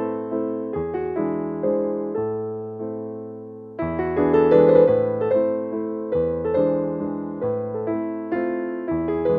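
Background piano music: a gentle melody of fading notes over low bass notes, dying away a little past the middle and picking up again louder.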